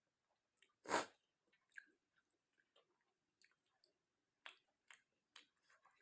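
Close-miked chewing and mouth sounds of a person eating chilli chicken and rice: scattered short smacks, the loudest about a second in and a few more in the second half.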